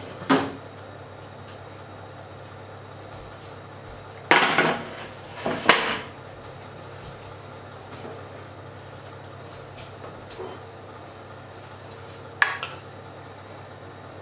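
Kitchenware clattering as a metal baking tray and china plate are set down on a wooden worktop: a sharp knock at the start, clatters at about four and six seconds, and a sharp clink about twelve seconds in, likely a spoon against the steel saucepan, over a steady low hum.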